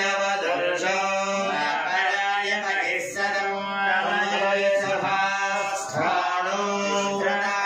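Male voice chanting Hindu puja mantras on a steady, held pitch, with short breaks about three and six seconds in.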